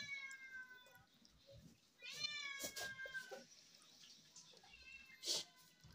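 A cat meowing twice: one drawn-out meow trailing off in the first second, and another about two seconds in that lasts over a second and sinks in pitch at the end. A sharp tap sounds a little after five seconds in.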